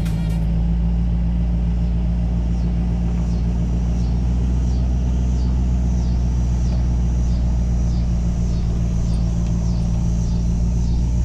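Boat's outboard motor running steadily under way, a deep even drone that holds at one speed.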